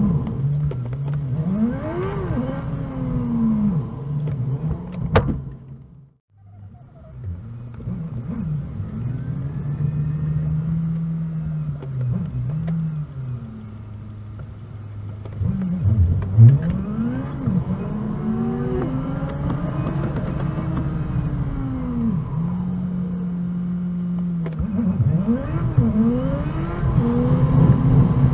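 Car engine and road noise heard from a moving car, played back at four times normal speed, so the engine's pitch sweeps up and down in quick arcs as it speeds up and slows. The sound drops away briefly about six seconds in.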